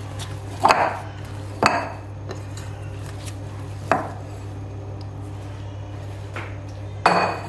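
Risen yeast dough being kneaded and knocked back by hand in a glass mixing bowl, then turned out onto the worktop: five dull thuds and knocks of dough and bowl, over a steady low hum.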